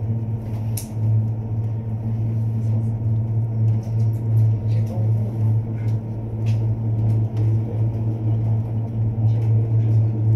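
Steady low hum inside a moving 3S cable car cabin as it travels along its cables, with scattered faint clicks and rattles.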